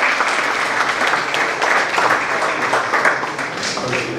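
Audience applauding with many quick hand claps, thinning out near the end.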